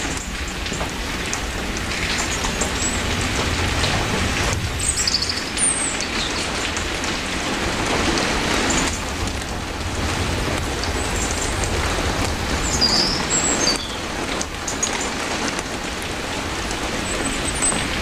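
Steady rain falling on trees and foliage, an even hiss with a low rumble beneath, and a few brief high chirps over it.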